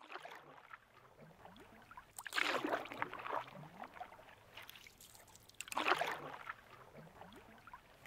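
Rowboat oar stroking through calm water: two swishing strokes about three and a half seconds apart, with faint water sounds in between.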